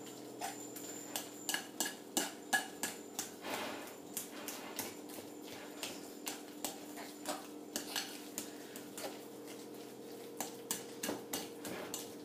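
A metal fork mashing hot boiled potatoes with cream in a ceramic bowl: irregular clinks and taps of the fork against the bowl, a few a second.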